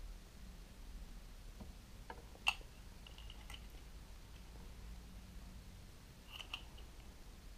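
Sharp plastic clicks from handling a Parkside cordless LED work light as its light bar is folded and turned on the hinged head. There is one loud click about two and a half seconds in, a few fainter ones just after, and a short cluster of clicks near the end.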